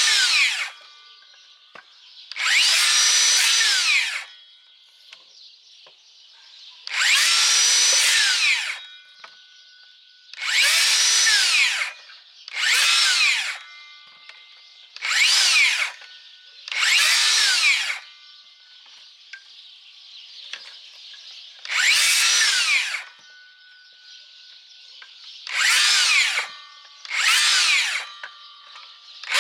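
DeWalt 60V Flexvolt DCS578 brushless cordless circular saw making about ten short cuts through thin tree branches. Each time the motor whines up, cuts briefly and winds down quickly under its electric brake.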